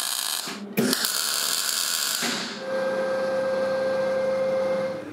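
Welding arc hissing in two bursts with a short break between them. Then a two-post car lift's electric motor whines steadily at one pitch for about two and a half seconds.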